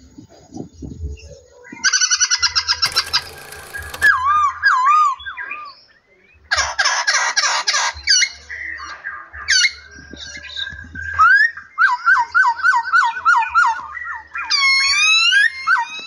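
Several songbirds singing and calling over one another, with whistled phrases, buzzy trills and quick series of chirps. Near the end come loud rising whistles.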